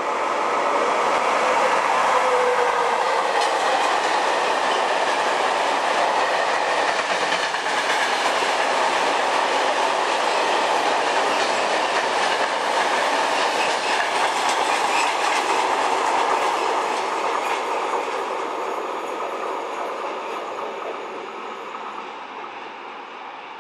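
Freight train of tank wagons behind a VR Sr1 electric locomotive rolling past at speed, the wheels clattering steadily. The sound stays loud for most of the pass, then fades steadily from about two-thirds of the way through as the train draws away.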